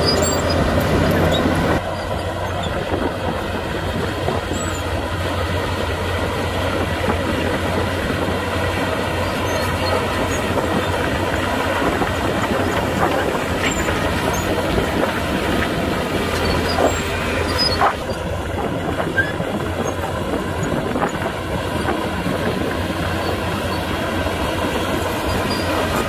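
Heavy Komatsu crawler bulldozer working: its diesel engine runs steadily under load while the steel tracks clank and squeal.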